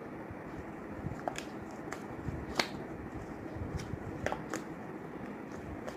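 Thick, sticky slime made of Fevicol glue, baking soda and detergent being stirred and worked in a bowl, giving scattered small clicks and sticky smacks.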